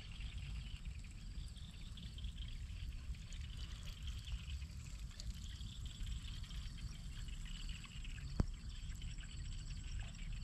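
Wind buffeting the microphone, with insects chirping steadily and shrilly in the field, and a single sharp click about eight seconds in.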